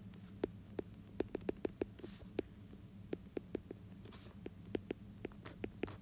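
Stylus tip tapping and clicking on a tablet's glass screen while handwriting: a quick, irregular run of light ticks over a faint, steady low hum.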